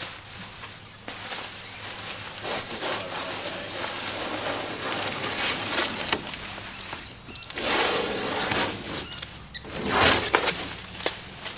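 Plastic masking sheeting crinkling and rustling as it is pulled and bunched off a boat hull, with masking tape peeling away. The rustling comes in uneven bursts, loudest about eight and ten seconds in.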